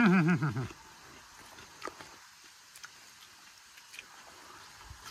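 A brief wavering vocal sound in the first second. After it, quiet with a few faint clicks as food is picked up by hand.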